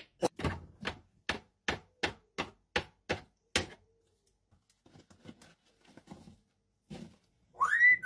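African grey parrot rapping its beak against a plastic slushie machine: about ten sharp knocks, a little over two a second, then a few faint taps and a single thunk. Near the end the parrot starts a rising whistle.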